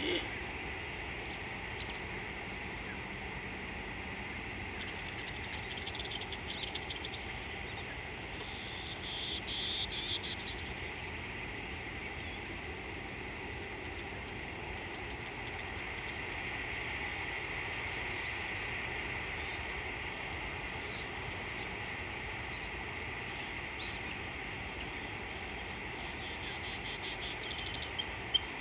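Insect chorus: a steady, even high drone, with short bursts of rapid chirping about ten seconds in and again near the end.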